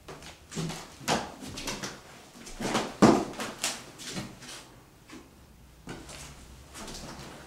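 Footsteps and scuffs on a bare floor littered with fallen plaster debris, an irregular run of knocks and crunches, loudest about three seconds in.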